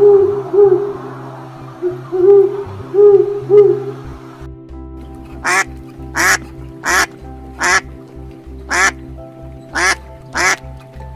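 A duck quacking, a string of about nine sharp quacks at an even pace, over background music. Before the quacks, a run of lower, shorter rounded calls repeats about every half second.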